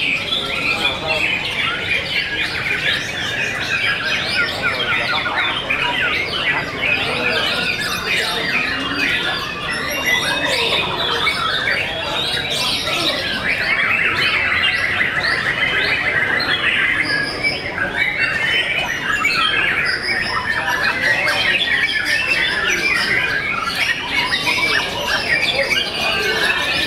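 Caged white-rumped shamas (murai batu) singing without a break, several birds at once, in a dense tangle of rapid chirps, whistles and harsh squawks.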